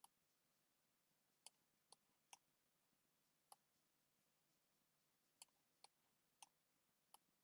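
Faint, sharp clicks from computer input during drawing work, about nine at irregular intervals over near silence.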